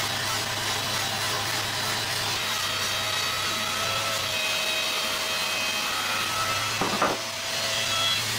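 Handheld angle grinder with a sanding disc running steadily, its motor whine over the rasp of the disc sanding wood. A brief knock near the end.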